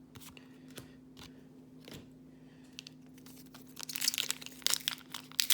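Foil trading-card booster pack wrapper crinkling and being torn open, a dense crackle starting about four seconds in, after a few light clicks of cards being handled. A steady low hum sits underneath.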